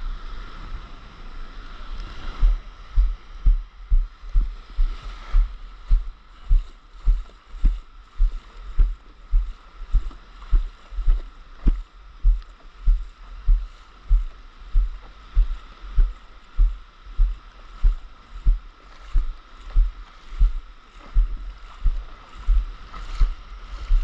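Wading through shallow surf: regular deep thumps a little under two a second, in walking rhythm, over sloshing water.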